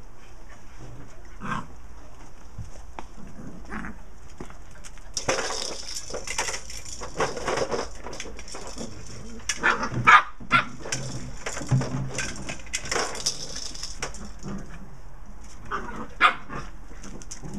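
A mother dog and her puppies play-fighting: growls, short barks and yaps, with scuffling. The sounds are thickest around the middle, with the sharpest yaps a little past halfway and one more near the end.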